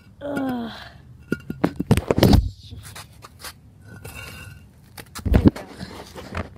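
Knocks, thumps and scrapes from a handheld phone being moved about, loudest around two seconds in and again after five seconds. A short voiced hum or grunt comes near the start.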